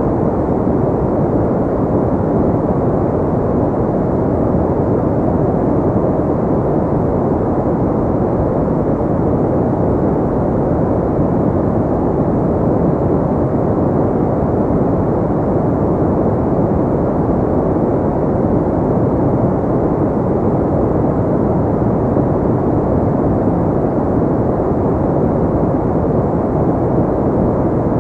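Steady pink noise, a continuous even hiss that is deep and muffled, with most of its energy in the low and middle range and little above the upper mids.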